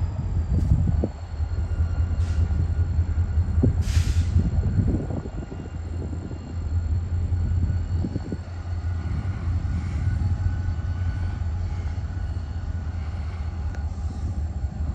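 EMD SD40 diesel-electric locomotive with its 16-cylinder 645 engine, running with a steady low rumble while switching the yard. A brief hiss comes about four seconds in.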